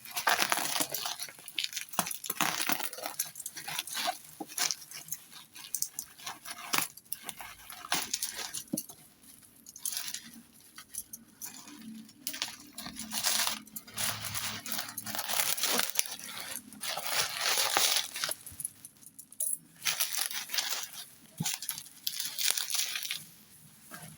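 Plastic packaging rustling and crinkling as shrink wrap, tape and bubble wrap are pulled and peeled off, in irregular bursts with small clicks.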